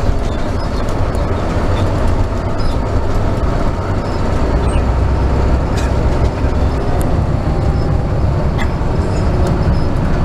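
Cabin noise inside a moving Scania K380 coach: a steady low engine and road rumble, with occasional clicks.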